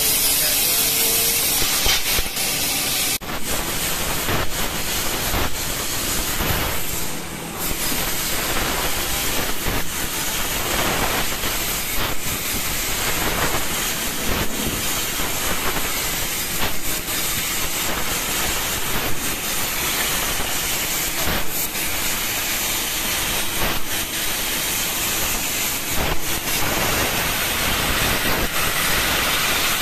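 3 kW fiber laser cutting machine cutting steel tube and sheet: a loud, steady hiss from the gas jet at the cutting head, with irregular crackles. The sound changes abruptly about three seconds in.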